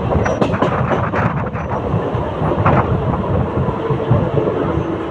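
Mumbai suburban local (EMU) train running, a steady rumble with the wheels clacking sharply over rail joints, mostly in the first couple of seconds and once more near the middle.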